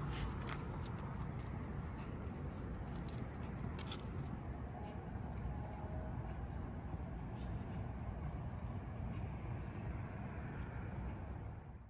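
Night outdoor ambience: a steady low rumble with a continuous high-pitched insect trill over it, and a few faint clicks. The dogs make no sound.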